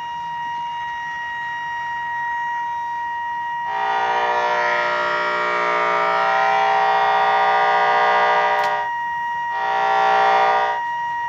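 Electronic tones through an amplifier's speaker: a steady high-pitched tone throughout. About four seconds in, a louder buzzing tone with many overtones joins it for about five seconds, then returns briefly near the end.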